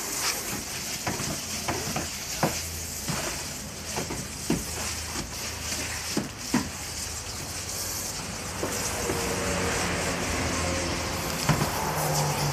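Coin-operated washing machine running, with water sloshing and scattered sharp clicks and knocks. A low steady hum joins about two-thirds of the way through.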